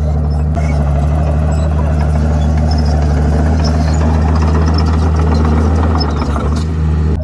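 Komatsu D51PX bulldozer's diesel engine running steadily under work, with a noisy rattling layer over it and a brief drop in level about six seconds in.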